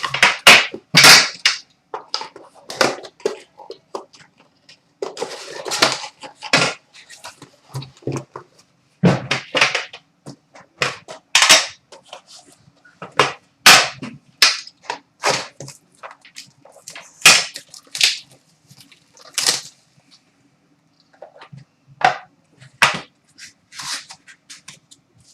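Hockey card box and pack being opened by hand: irregular sharp crackles, snaps and tearing of wrapper and cardboard packaging, with cards being handled.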